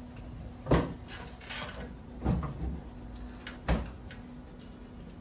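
Three sharp knocks about a second and a half apart, with lighter clicks between them, over a steady low hum: handling noise like a cabinet, drawer or desk object being shut or set down.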